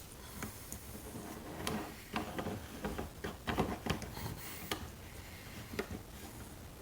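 Scattered light clicks and taps of a small amphenol connector being handled and set into a bench vise.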